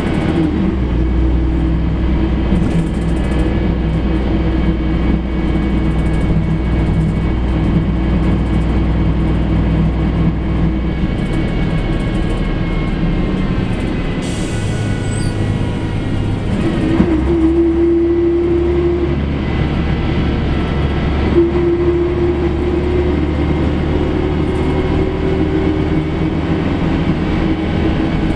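Volvo B58 bus's diesel engine and drivetrain running as the bus drives, heard from inside the cabin as a steady rumble with a droning note. The engine note changes about eleven seconds in and again at about seventeen seconds, and a brief hiss comes at about fourteen seconds.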